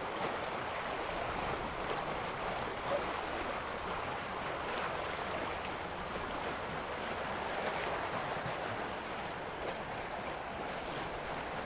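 Steady rushing of a fast-flowing, flood-swollen river.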